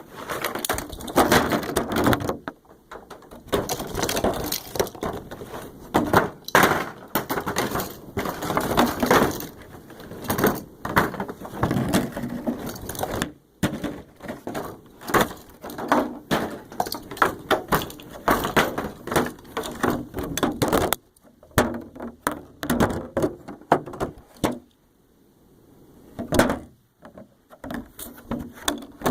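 Homemade train-crash sound effect: a long run of irregular bangs, knocks and clatters of hard objects striking and tumbling together, with a couple of short lulls in the last third.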